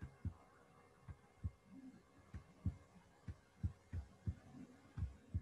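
A stylus tapping and knocking on a tablet screen while digits are handwritten: a run of soft, dull knocks at an uneven two or three a second.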